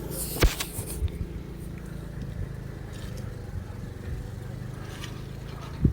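A steady low hum with a few sharp clicks and scrapes, and two quick knocks near the end.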